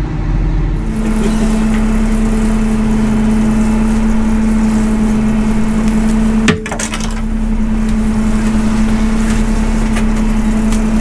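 Fishing boat machinery running with a steady droning hum over a haze of wind and sea noise, with faint scattered clicks.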